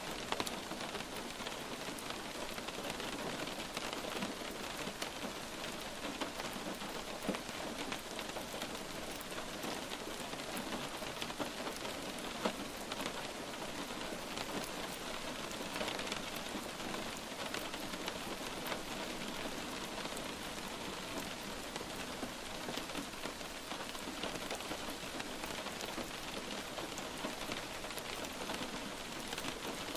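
Light rain falling steadily, a constant hiss with many small drop ticks.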